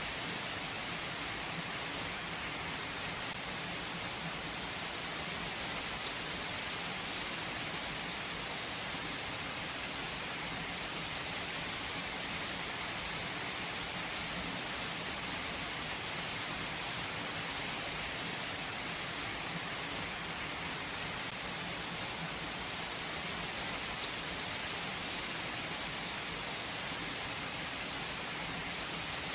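Steady rain falling on a surface, an even hiss with scattered individual drops ticking.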